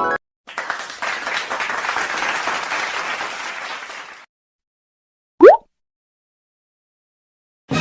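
Crowd applause, a dense patter of clapping that runs for about four seconds and then stops. About a second later comes a single brief rising whistle-like tone, a quick upward sweep, which is the loudest sound.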